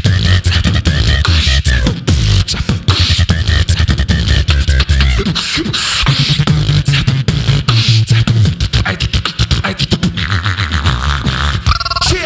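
Two beatboxers performing a trap beat into handheld microphones: fast mouth-made snare and hi-hat clicks over a deep, sustained bass line. The bass drops out briefly about five seconds in, and a wavering high tone comes in near the end.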